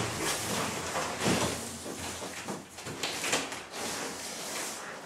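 White foam packaging sheet rustling and scraping as it is peeled off a wooden desktop panel, in uneven strokes with louder ones about a second in and just past three seconds, dying down near the end.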